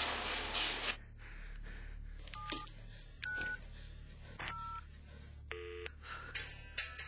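Phone speed-dialling: a loud hiss in the first second, then three short two-tone keypad beeps about a second apart, followed by a brief low telephone tone as the call goes through.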